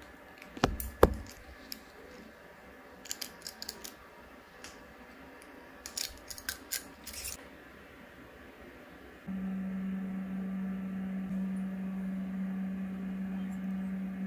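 Small clicks and taps of a shower hose's metal end fitting and a cutting tool being handled, in a few short clusters, the loudest about a second in. From about two-thirds of the way in, a steady low hum at one pitch joins them.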